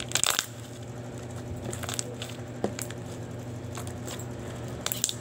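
Fluffy slime being squeezed and poked between the fingers, giving scattered small squishy clicks and crackles: a cluster at the start, then single ones every second or two.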